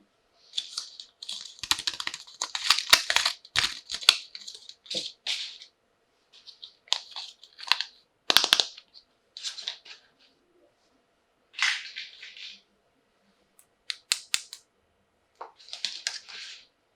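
Plastic toy packaging being handled during an unboxing: crinkling and rustling in short bursts, with several sharp clicks of hard plastic parts.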